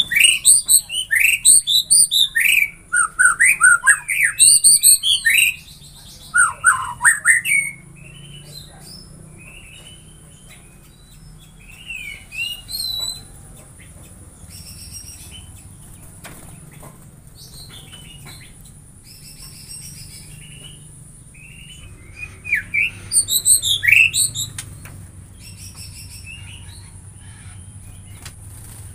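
White-rumped shama (murai batu) singing: a fast run of loud, varied whistles and trills sweeping up and down for the first eight seconds or so, then a few scattered soft notes, and another short burst of song about three-quarters of the way through.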